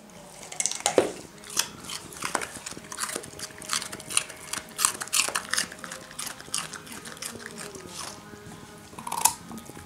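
Dalmatian biting and chewing a carrot: irregular sharp crunches, coming thick and fast for the first six seconds or so, then fewer, with one loud crunch near the end.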